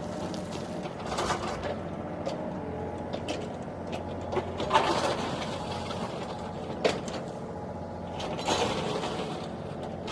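Mini excavator's diesel engine running steadily while it digs, with louder rasping bursts every few seconds from the bucket working the soil and a sharp knock near seven seconds in.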